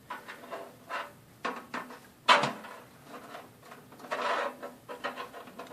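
Handling noises from a SATA cable and its plastic plug being fitted inside a computer case: scattered light clicks and knocks, one sharp knock a little over two seconds in, and a short scraping rustle about four seconds in.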